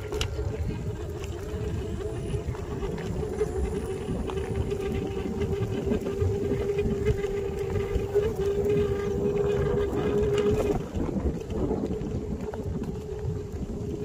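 Electric kick scooter's motor whining at a steady pitch over a dense low rumble from its ride on a rough dirt track. The whine wavers and fades about eleven seconds in.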